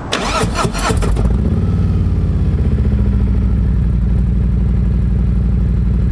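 Harley-Davidson Road Glide Special's Milwaukee-Eight V-twin, breathing through a newly fitted Khrome Werks full exhaust system, starts up in the first second or so. It then settles into a steady, evenly pulsing idle.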